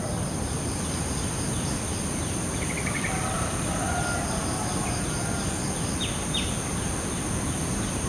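Steady outdoor background noise with a constant high-pitched insect drone, and a few faint, brief chirps and short calls of small birds from about three seconds in.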